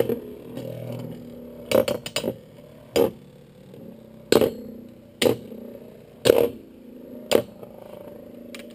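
Two Beyblade spinning tops with metal fusion wheels whirring in a plastic stadium and clashing together with sharp metallic clinks, about once a second, with a quick cluster of three hits about two seconds in.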